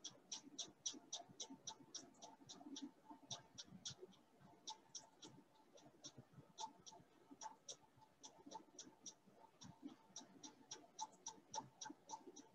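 Near silence, with faint rapid ticking of about three to four uneven ticks a second over low room noise.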